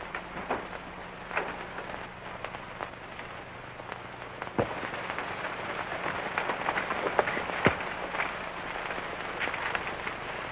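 Surface noise of a worn 1940s film soundtrack: steady hiss and a low hum, with irregular clicks and pops scattered through it.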